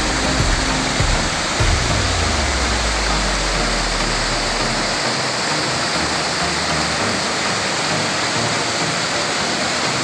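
Steady rushing hiss of a tiered waterfall and its stream pouring over rock ledges. A low rumble underneath fades out about halfway through.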